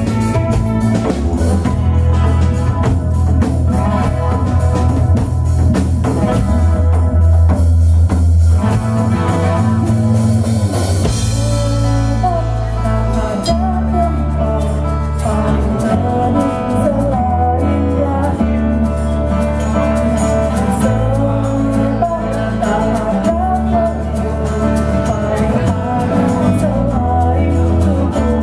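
Live blues-tinged band music: acoustic guitar, electric bass and drums, with a woman singing. The bass walks through a repeating line of low notes, and a wavering vocal melody comes in strongly from about halfway through.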